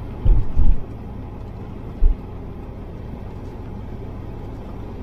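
Steady engine and road rumble heard from inside a moving car, with low thumps twice in quick succession within the first second and once more at about two seconds.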